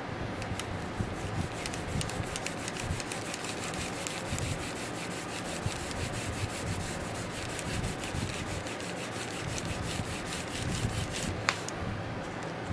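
A sponge pad loaded with leather dye is rubbed along the tooled border of a leather belt in quick short strokes, making a dry scuffing rub. One sharp click comes near the end.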